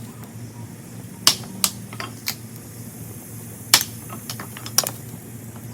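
A few sharp, irregular clicks or snaps, about six spread over several seconds, over a steady low hum.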